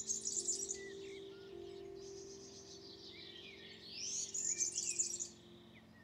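Songbirds singing: busy high trills and chirps, with two louder trilling phrases of about a second each, one at the start and one about four seconds in. Held low music notes play softly underneath.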